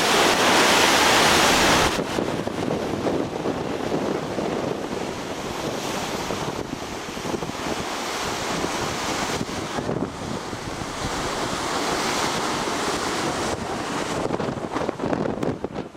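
Wind blowing hard across the microphone over the rush of open sea from a moving boat, loudest in the first two seconds, then a steady gusting rush.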